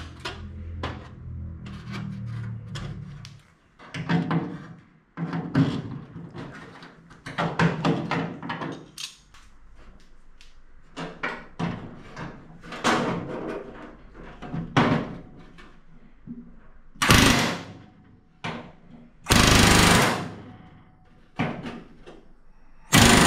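Pneumatic rivet gun driving aluminium rivets in short bursts, between clicks and clanks of hand tools and metal parts. The loudest bursts come in the last few seconds, one lasting about a second.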